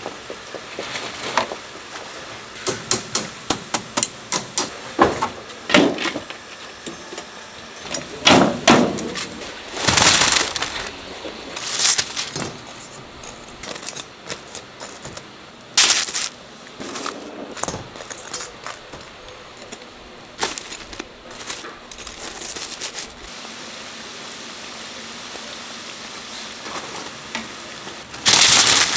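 Metal tongs clinking and knocking against a wire skimmer and a steel bowl as twisted donuts are lifted from frying oil and tossed in sugar: irregular runs of sharp clinks over a steady sizzle. Near the end comes a loud clatter as a wire basket of donuts is tipped out onto paper.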